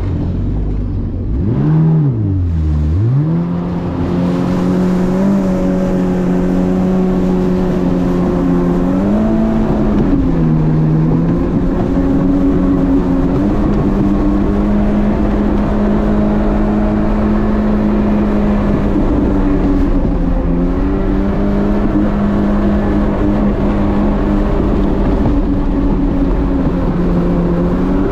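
Jet ski engine running under way, its pitch dipping sharply and recovering about two seconds in as the throttle is eased and reopened, then holding steady with a few small shifts, over a steady rush of wind and water.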